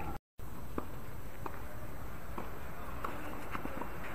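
Steady outdoor background noise with a few faint, scattered taps and a brief total dropout of the sound about a quarter-second in.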